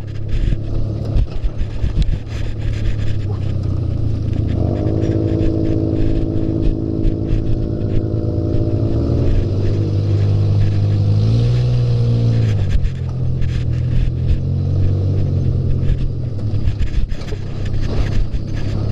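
Off-road buggy engine running while driving, with its note held steady for several seconds. About halfway through it climbs, then drops back. Frequent short knocks and rattles run throughout.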